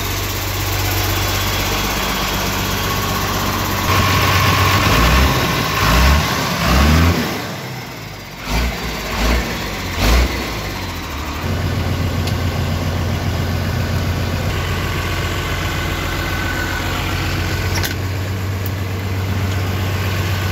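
Tata LPT 2515 truck's diesel engine idling steadily, with louder, uneven stretches about four to seven seconds in and a few low thumps around nine to ten seconds, before settling back to a steady idle.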